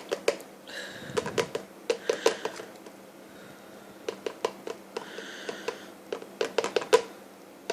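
A plastic formula powder container tapped in quick runs against a baby bottle to knock the powder in, in four short clusters of taps, with two brief hisses of powder pouring, about a second in and again about five seconds in.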